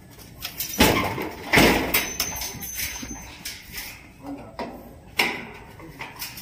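Knocks and scrapes of a gas range's sheet-metal panels being worked loose with a screwdriver, a few separate clanks with the loudest about a second and a half in.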